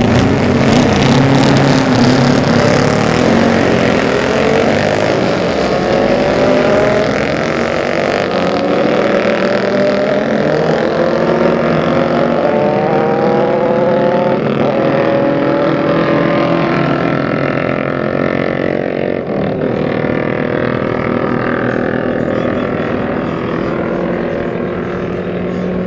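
Racing superbikes at full throttle: loudest at the start as they pass close by, then the engines pull away, the note climbing and dropping back at each upshift.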